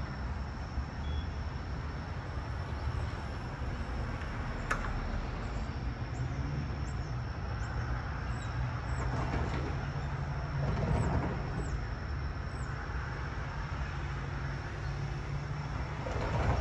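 Steady low rumble of vehicles, swelling briefly about eleven seconds in and again near the end, with a single sharp click about five seconds in and a faint steady high whine.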